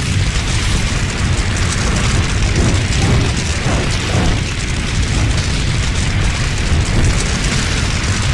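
A loud, continuous rumbling roar like a fire blast or eruption: deep rumble underneath with a hiss over it, holding steady without a break. It is a made-up sound effect for a dragon creature.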